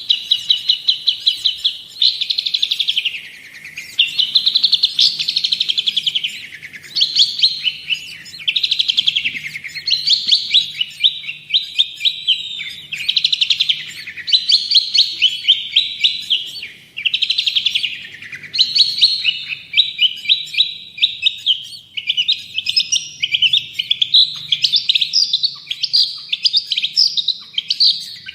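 Long-tailed shrike (cendet/pentet) singing nonstop: rapid strings of repeated chattering notes in phrases that slide up and down in pitch, broken only by short pauses every few seconds.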